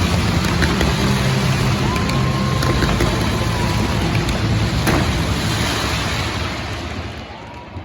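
Fireworks barrage: a dense mass of crackling and bangs over a low rumble, dying away near the end.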